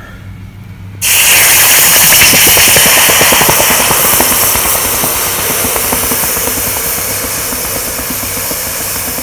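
A still-hot rusty steel bolt quenched in water, setting off a loud, sudden sizzling hiss about a second in as the water boils against the metal. The hiss slowly fades as the bolt cools.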